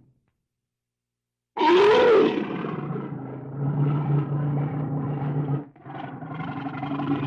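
After a second and a half of silence, a large wild animal's loud roaring call starts abruptly, its pitch rising and falling at first, then carries on as a steady, rough roar with a brief break near the end.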